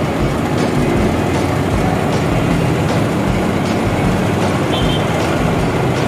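Concrete pump truck running while it pumps concrete through its discharge hose. A loud, steady engine drone with a regular low thump a little more than once a second.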